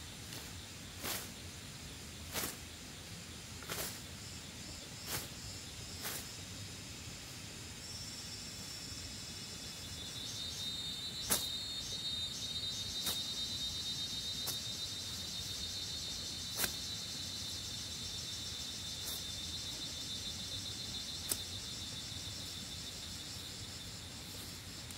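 A run of sharp knocks, about one every second and a quarter, then only a few scattered ones. From about ten seconds in, insects keep up a steady high-pitched buzzing trill.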